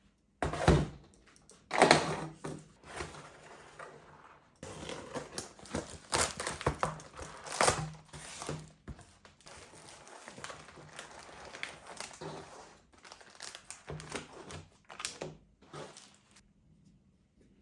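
Hands handling computer hardware and its plastic packaging: a run of clicks, knocks and crinkling. The two loudest knocks come about half a second and two seconds in, with denser rustling and clicking in the middle and sparser clicks toward the end.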